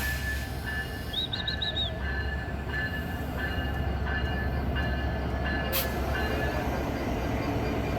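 Intercity express train pulling into the station behind a diesel locomotive: a steady low rumble of the engine and rolling coaches, with a thin high squeal that comes and goes.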